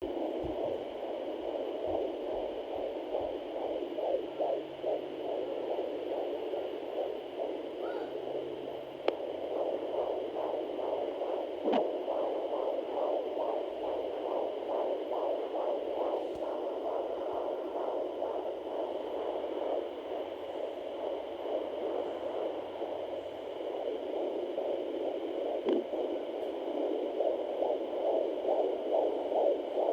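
Fetal heartbeat at 21 weeks of pregnancy picked up by a Sonoline home fetal Doppler, heard through its speaker as a fast, even, rhythmic pulsing swish. A steady faint high tone from the device runs underneath, with a few brief clicks.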